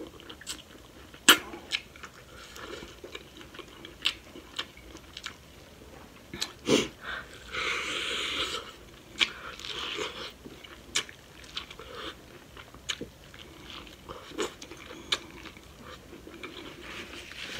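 Close-up eating sounds: chewing with many sharp, wet mouth clicks, and a longer bite into corn on the cob about eight seconds in.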